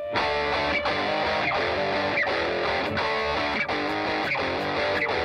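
Instrumental music led by a guitar playing a short phrase that repeats about every 0.7 seconds.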